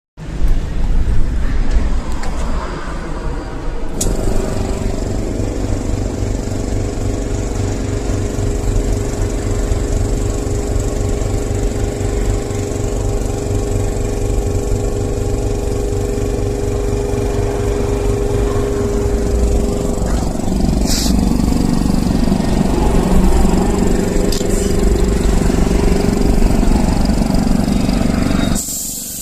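GREAT TOOL GTAC-07510 air compressor running: its motor and pump drive steadily with a low, pulsing rumble, the note shifting about four seconds in and again later, then stop suddenly near the end.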